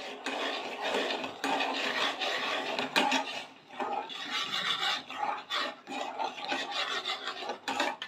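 A steel spoon stirs and scrapes around the inside of a steel pot of frothy coffee and milk, a continuous rasping rub of repeated strokes that stops shortly before the end.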